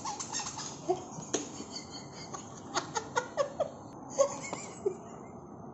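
A puppy moving about a hard tiled floor with a rope toy: scattered light clicks and taps, with a few short, faint squeaky sounds in between.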